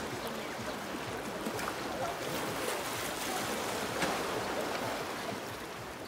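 Small sea waves washing onto a pebble beach: a steady hiss of surf with a few light clicks of stones.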